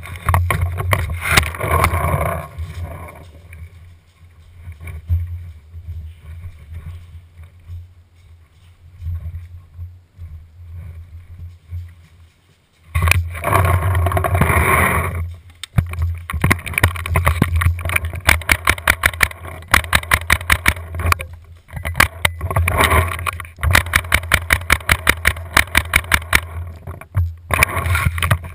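Tippmann A5 paintball marker firing long strings of rapid shots, several a second, with short pauses between strings, in the second half. Before that there is a quieter stretch of low rumble and handling noise.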